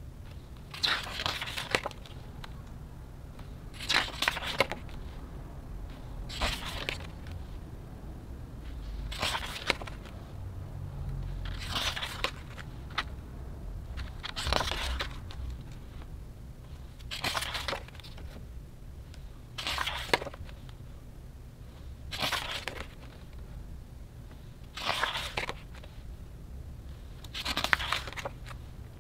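Pages of a hardcover photobook being turned one after another, a short papery swish about every two and a half seconds.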